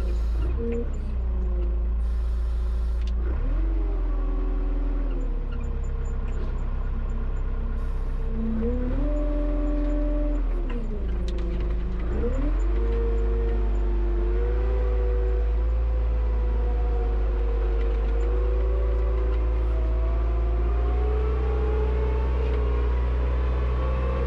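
Tractor engine running under load, its pitch dropping and rising again several times as the throttle changes, then holding steadier. A fainter whine climbs slowly near the end.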